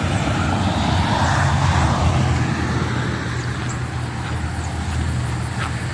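A steady low engine rumble that swells about a second or two in and then slowly fades, with faint high chirps over it.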